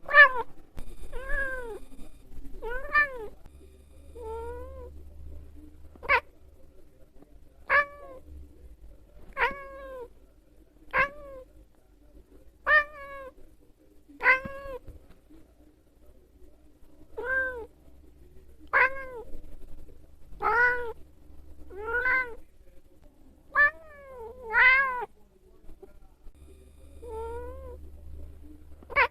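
A domestic cat meowing over and over: about seventeen short calls, each rising and falling in pitch, coming roughly every one and a half seconds.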